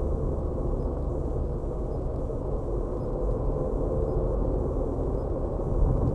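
Steady low rumble of a car driving at road speed, engine and tyre noise heard from inside the cabin by a windscreen-mounted dashcam, with a slight rise in loudness near the end.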